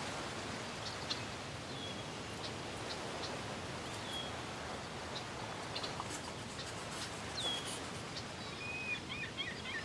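Outdoor natural ambience: a steady soft rushing noise with small birds chirping now and then, the chirps coming thicker near the end.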